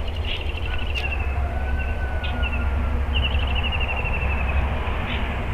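A steady low rumble of wind on the microphone, with small birds calling over it: a few short high chirps, a thin whistled note, then a fast series of high chirps about three seconds in.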